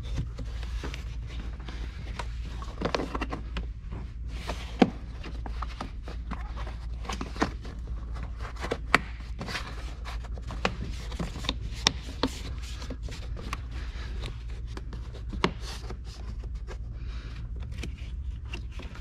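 Rubber weather-strip seal being pressed back onto the lip of a plastic BMW E46 windshield cowl trim piece by hand: scattered sharp clicks and taps with rubbing and scraping, over a steady low hum.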